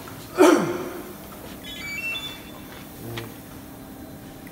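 A loud knock and short scrape about half a second in as a melamine panel is laid on the CNC drilling machine's table, followed by a few faint, short electronic beeps.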